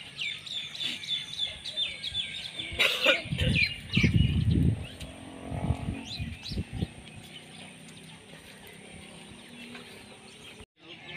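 Small birds chirping in a dense chorus of quick chirps, thinning out after about three seconds. Partway through, a few loud low rumbles.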